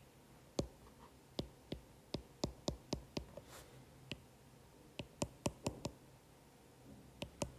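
Stylus tapping on a tablet screen while handwriting: a series of short, sharp clicks in irregular runs.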